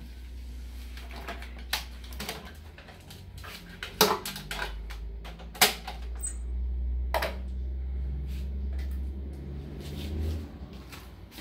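Hard plastic knocks and clatter from handling a Ninja kitchen blender as its pitcher lid is taken off: a handful of sharp knocks, the loudest about four and five and a half seconds in, over a low steady rumble.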